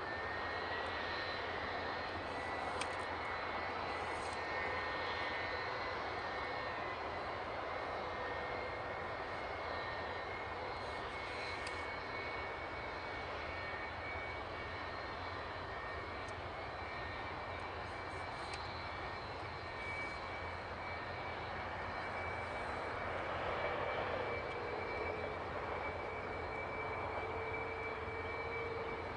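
Airliner jet engine idling on the ground, a steady whine over continuous noise. It is the one engine still running after a bird strike shut the other down.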